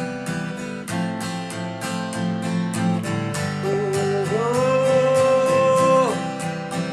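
Acoustic guitar strummed in a steady rhythm. About halfway through, a voice comes in with a long wordless sung note that steps up once and slides down near the end.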